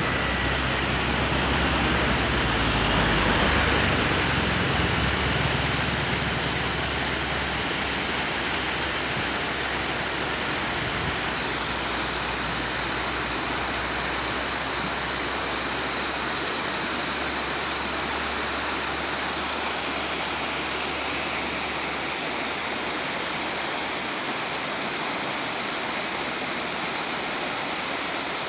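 Steady rush of flowing river water, an even hiss with no break, a little louder for the first few seconds.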